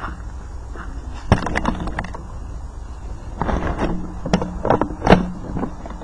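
Two irregular clusters of sharp clicks and knocks, one about a second in and another from about halfway to near the end.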